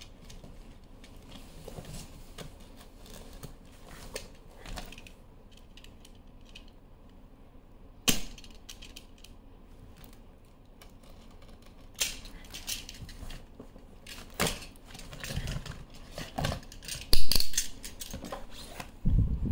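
Skincare boxes and bottles being handled and unpacked from a cardboard carton: scattered knocks, clinks and rustles. There is a single sharp knock about eight seconds in, and the loudest cluster of knocks comes near the end.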